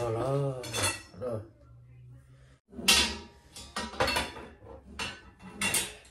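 Light metal rack parts knocking and clinking together as the rack is assembled by hand, a series of sharp clicks and clanks through the second half. A voice is heard briefly at the start.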